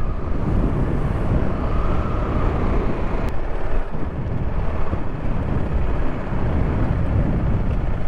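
Steady low wind buffeting on a helmet-mounted action-camera microphone, with the motorcycle's engine running underneath as the bike rides along.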